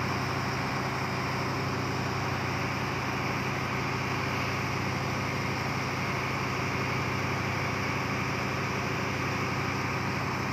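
Engine aboard a bagang lift-net fishing boat running at a steady idle-like drone, even and unchanging throughout, with a low hum and a hiss on top.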